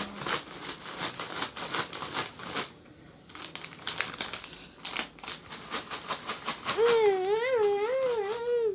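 Plastic snack bag crinkling as it is handled and rummaged in, in irregular crackles. Near the end a child's voice sings a wavering note for about two seconds.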